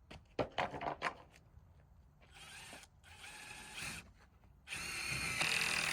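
Power drill driving screws into wood in three runs of its motor whine, the last the loudest and longest, after a few sharp knocks of wood in the first second.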